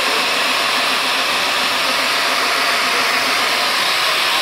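Electric core drill, mounted on a column stand, running steadily as its bit bores into reinforced concrete: a loud, even motor whine.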